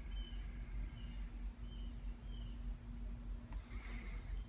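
Outdoor ambience: a steady high-pitched insect drone with a bird giving four short chirps, about one every two-thirds of a second, over a low rumble and a faint steady hum that stops near the end.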